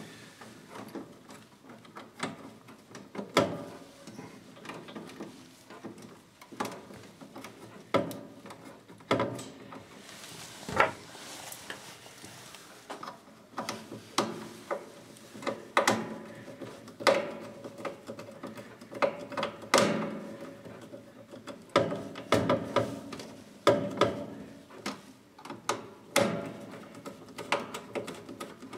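Irregular small clicks, taps and scrapes of wires being worked into a plastic terminal block by hand.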